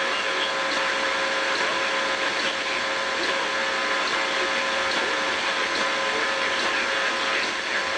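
Steady radio static hiss with faint steady hum tones running under it, with no breaks, as heard through a weather-radio receiver.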